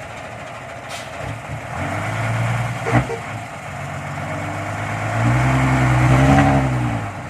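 Truck engine revving hard under load as it tries to tow a dump truck, sunk in soft mud, out by a chain. The engine builds, eases off, then rises to its loudest a couple of seconds before the end. There is one sharp knock about three seconds in.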